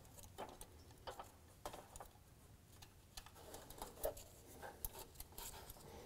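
Faint, irregular small clicks and taps of a steel feeler gauge blade knocking against the rocker arms and valve adjusting screws as it is worked toward the exhaust valve gap. The gauge will not go in because the exhaust valve clearance is too tight.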